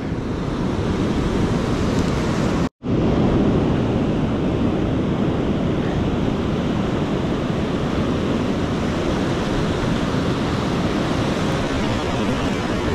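Ocean surf breaking and washing up a sandy beach, a steady rushing noise mixed with wind buffeting the microphone. The sound drops out completely for an instant about three seconds in.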